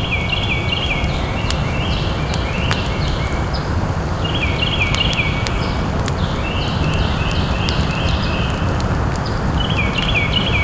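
Small campfire of split kindling crackling with sharp pops over a steady low rush, while a bird calls in repeated runs of short, falling chirps.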